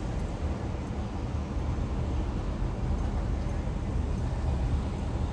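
Steady low road and engine rumble of a car being driven.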